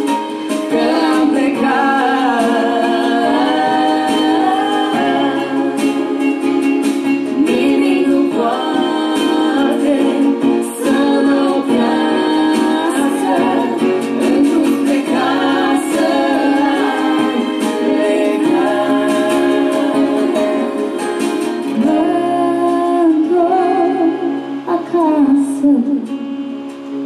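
A woman and a man singing a slow song into microphones over instrumental accompaniment, amplified through loudspeakers.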